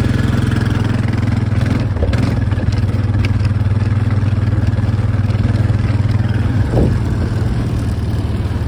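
ATV engine running steadily at low speed, with a constant low hum.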